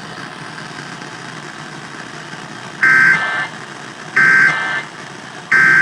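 Emergency Alert System end-of-message signal: three short bursts of buzzy SAME digital data tones, about a second and a half apart, marking the close of the required monthly test. They start after a few seconds of steady radio hiss.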